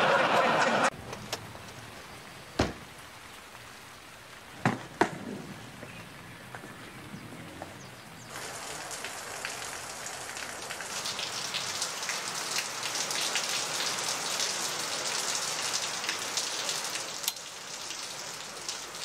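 Studio audience laughter cut off about a second in, then a quiet stretch with three sharp knocks. From about eight seconds in comes the steady, crackling hiss of heavy rain, growing louder.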